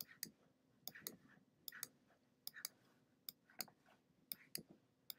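Faint computer-mouse clicks, often in pairs about once a second, as the button is pressed and released for each drag stroke.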